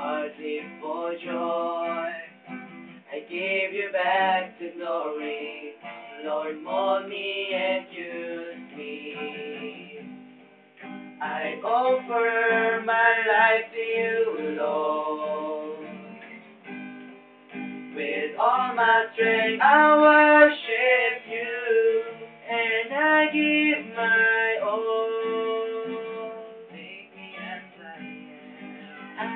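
Acoustic guitar strumming with voices singing a slow song.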